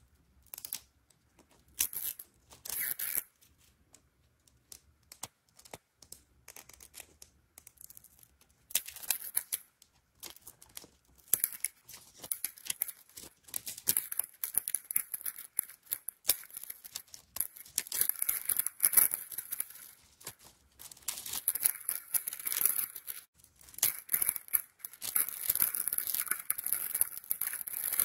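Paper wrapper being torn and peeled off a plastic toy capsule ball, with clear plastic film crinkling as it is pulled away. The rustling and tearing comes in irregular bouts with small clicks, busiest in the second half.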